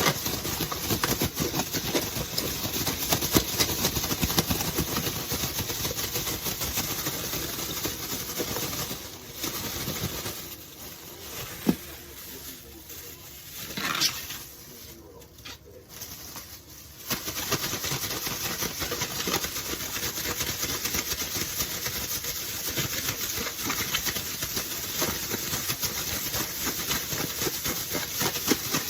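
Food sizzling and crackling in a frying pan, dying down for several seconds in the middle before picking up again.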